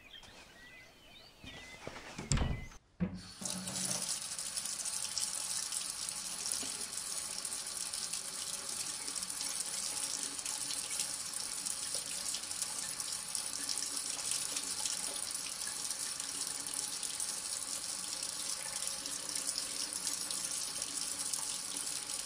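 A short thud about two seconds in, then from about three seconds a kitchen tap running steadily, pouring water into a bucket of potatoes in a sink.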